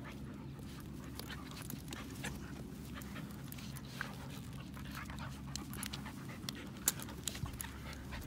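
Dogs panting as they play, with scattered small clicks and rustles and one sharper click about seven seconds in.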